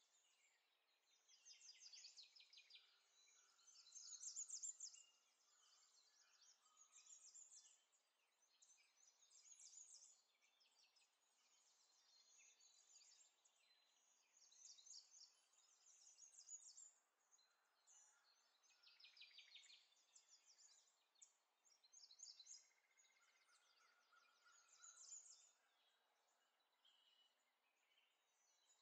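Faint birdsong: quick high chirps and rapid trills, repeating every couple of seconds.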